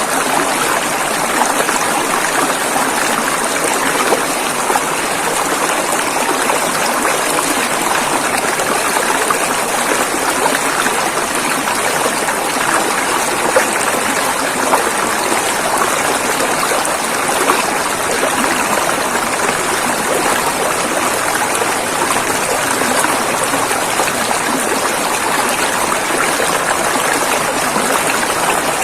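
River water flowing over rocks: a steady, full rushing and splashing.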